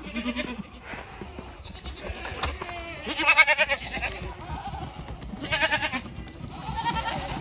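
Goats bleating, several wavering calls one after another, the loudest about three seconds in.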